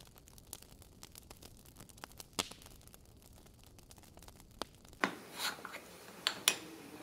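Faint old-film crackle with scattered pops. About five seconds in, a small metal tin of red diamond paste is handled on a workbench: a brief scrape, then a few sharp clicks of the tin.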